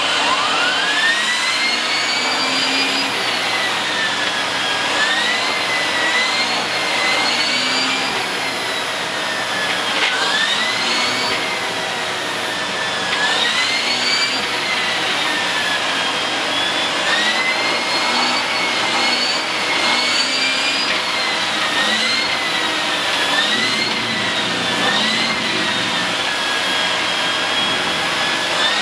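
Canister vacuum cleaner running. Its motor whine climbs in pitch over the first couple of seconds as it spins up, then keeps dipping and rising again every few seconds as the hose nozzle is worked over the bed.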